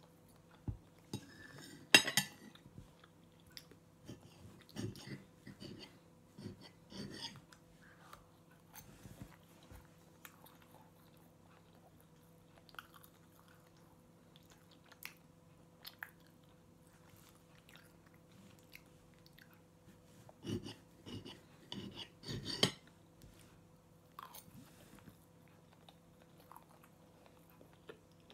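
A person eating pancakes with a knife and fork: quiet chewing, with scattered sharp clicks of metal cutlery against a ceramic plate. The loudest click comes about two seconds in, and a cluster comes about twenty seconds in.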